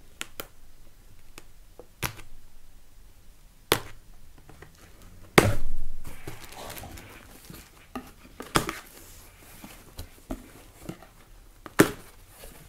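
A parcel being opened by hand: scattered sharp knocks and clicks with soft rustling of packaging, the loudest knock about five seconds in, followed by a short burst of rustling.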